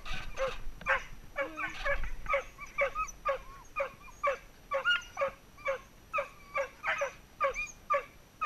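Welsh Springer Spaniels harnessed to a bikejoring line barking and yelping excitedly, about two to three high-pitched yips a second, some sliding up and down into a whine, as they strain to be let go.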